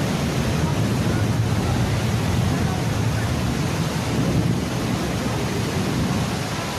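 Steady rush of heavy rain and floodwater, with a deep rumble underneath that sets in just as it begins.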